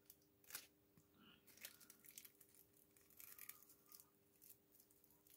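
Faint rustling and light crinkles of thin cigarette rolling paper handled by fingers while a paper black-powder cartridge is being made, over a faint steady hum.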